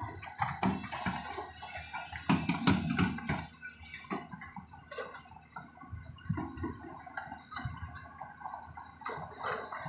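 Hydraulic excavator working earth, its engine running under a steady hum while the bucket scrapes and knocks and loose soil and rocks clatter and tumble in irregular bursts.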